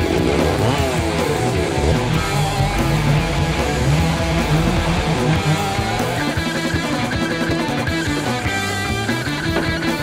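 Rock music with guitar.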